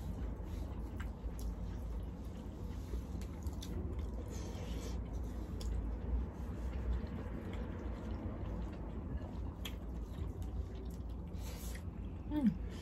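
Two people eating with their hands: quiet chewing and fingers picking at rice on plates, with soft scattered clicks over a steady low hum.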